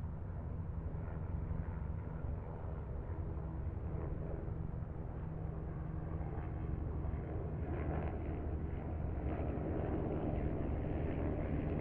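Steady low mechanical drone with a rushing noise over it, growing a little louder about two-thirds of the way through.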